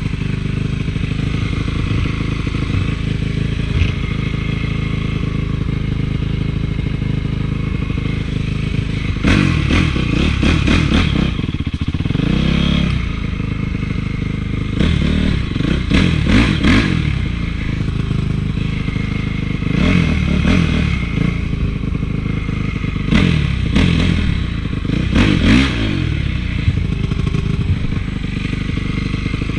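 Honda CRF450 single-cylinder four-stroke motocross engine running steadily, with four spells of revving where the pitch rises and falls as the throttle is opened and closed.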